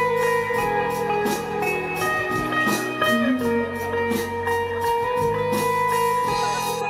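Live band playing amplified music: guitars holding notes over a steady drum beat.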